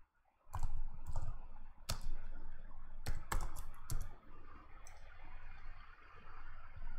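Computer keyboard typing: irregular runs of key clicks with short pauses between them, thinning out about five seconds in.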